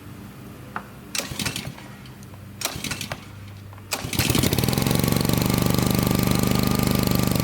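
Small gasoline engine of a pressure washer being pull-started: two pulls on the recoil starter that don't catch, then on the third, about four seconds in, it fires and settles into a loud, steady run.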